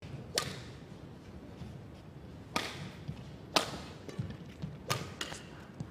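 Badminton rackets striking the shuttlecock in a rally: four sharp hits one to two seconds apart, with softer taps and thuds of footwork on the court between them.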